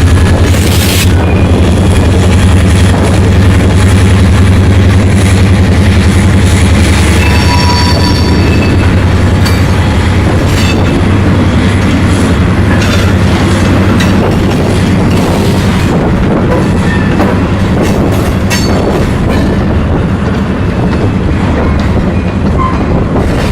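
Freight train rolling past close by: a diesel locomotive's low engine rumble that eases a little after the first half, with brief wheel squeals about a third of the way in and scattered clicks of wheels over the rail.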